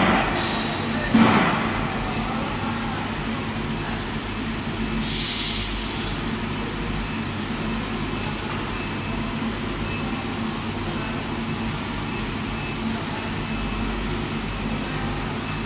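Steady mechanical hum of a phosphating line's overhead gantry hoist and plant machinery running. There is a brief loud sound about a second in and a short hiss about five seconds in.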